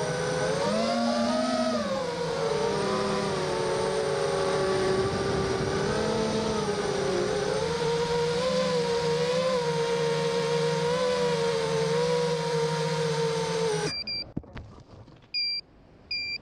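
FPV racing quadcopter's brushless motors whining, the pitch rising and falling with the throttle. About three seconds before the end the whine cuts off suddenly as the quad crashes into a bush, followed by a few knocks and short high beeps repeating about once a second.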